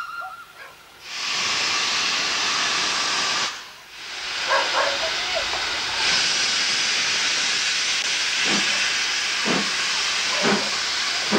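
Steam locomotive hissing loudly as steam blows out around its cylinders and wheels from the open cylinder drain cocks. The hiss starts about a second in and breaks off briefly a few seconds later. Near the end a run of short pulses comes about once a second.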